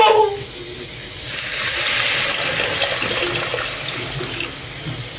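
Water poured into a non-stick pot of raw rice and onions, a steady splashing pour of about three seconds that tapers off near the end: the cooking water going in on the rice.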